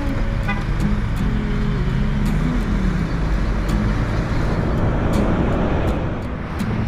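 Diesel vehicle driving on the road: steady engine and tyre noise, with the engine's pitch shifting up and down.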